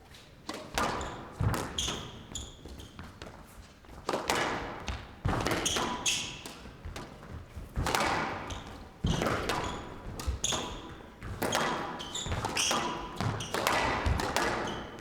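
A fast squash rally: the racket strikes the ball and the ball cracks off the court walls about once a second, with an echo, and shoes squeak on the court floor between shots.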